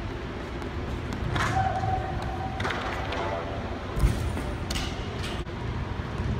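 A pole vaulter landing on a foam landing pit: a heavy thud about four seconds in, followed shortly by a brief clatter.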